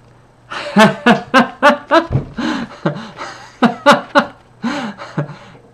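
A man laughing: a run of short, breathy laughs that begins about half a second in and comes in bursts to near the end.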